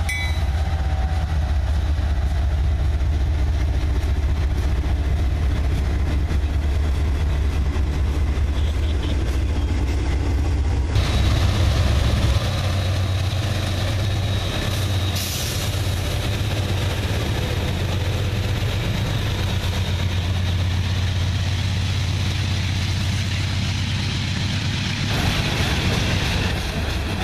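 CSX freight train passing close by. It starts with the deep, steady rumble of its diesel locomotives, and from about eleven seconds in there is louder rolling noise of wheels on rail. Near the end the freight cars roll past.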